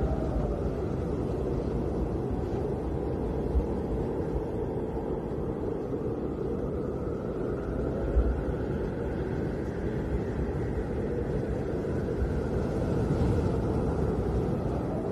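Snowstorm wind blowing hard with a steady low rumble, and a faint hollow howl that slowly rises and falls in pitch.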